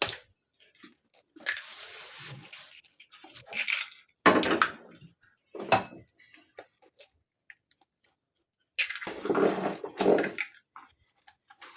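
Eggs being cracked open and broken into a bowl, in several separate bursts of cracking and crunching shell with sharp knocks between them.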